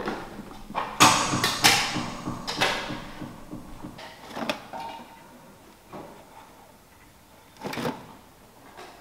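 Empty plastic bottles and packaging crackling and crinkling in irregular bursts: a dense cluster about a second in, then a few fainter crackles later.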